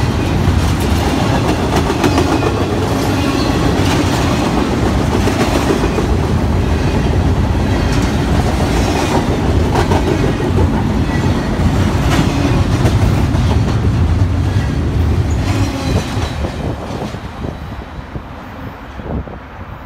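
Double-stack intermodal freight train rolling past close by: a steady rumble from the well cars, with wheels clicking over the rail joints. It fades away over the last few seconds as the end of the train moves off down the line.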